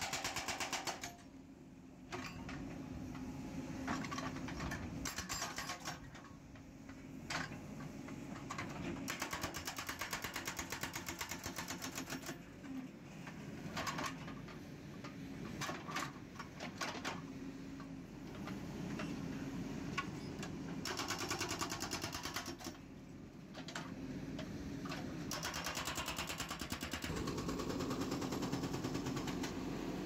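Hydraulic breaker on a JCB 3DX backhoe loader hammering concrete in several bursts of rapid, evenly spaced blows, with short pauses between them. The backhoe's diesel engine runs underneath throughout.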